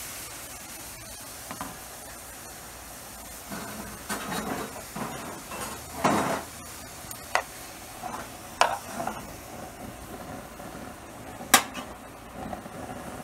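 Shrimp sizzling in a hot nonstick skillet, with short scrapes and clicks of a utensil against the pan as they are moved around. One sharp clack on the pan about three-quarters of the way through is the loudest sound.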